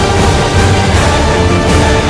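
Loud background music with heavy, steady bass and held tones.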